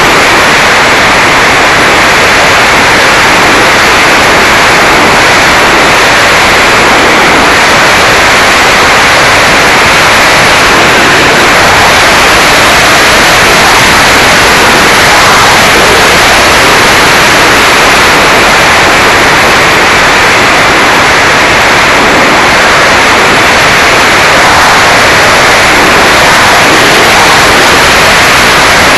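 Mini Talon RC plane in flight heard from its onboard camera: a loud, steady rush of wind and electric pusher propeller noise, with no change in level throughout.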